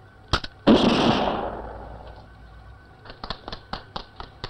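A gunshot sound effect: a couple of sharp clicks, then a loud blast just under a second in whose hiss dies away over about a second and a half, followed by scattered crackling clicks. It marks the monster photograph being shot and destroyed.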